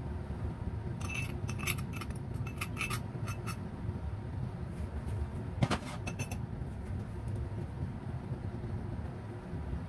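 Metal spoon clinking and scraping against a small bowl and a glass mixing bowl as curry powder is knocked out: a quick run of light clinks, then one sharper knock a couple of seconds later, over a steady low background rumble.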